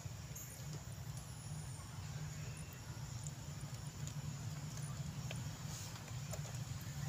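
Outdoor ambience: a steady low rumble with faint scattered clicks and no clear call.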